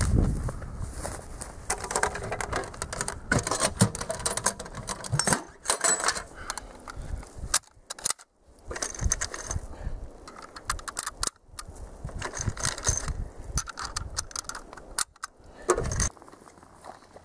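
Bolt-action rifle being handled and loaded by hand: irregular metallic clicks and rattles of the action, with short pauses between them and a last sharp clack near the end.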